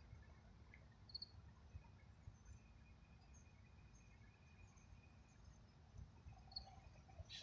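Near silence: faint outdoor ambience with a low rumble, a faint high steady chirring and two short high chirps, about a second in and again near the end.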